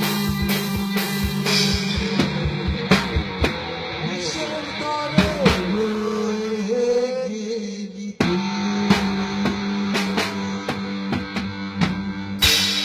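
Rock band jamming: drum kit hits over held, bending guitar notes, with a brief break about eight seconds in.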